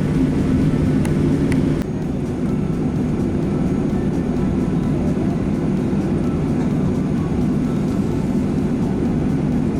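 Steady cabin drone inside a Boeing 737-800 on the ground before take-off: engines running and air conditioning humming, a low roar with a few steady tones. It drops a little about two seconds in and then holds level.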